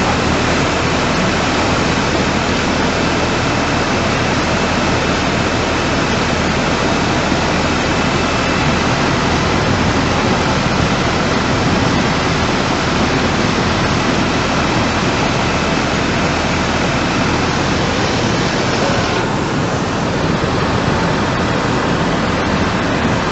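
Muddy flash-flood torrent rushing, a loud, steady, unbroken rush of water. The hiss thins a little near the end.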